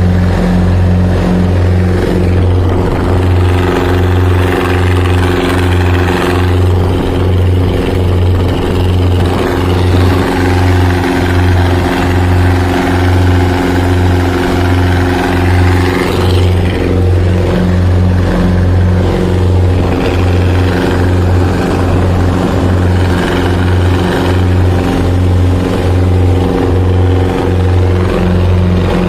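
Boat engine running steadily, with a low hum that pulses about once a second.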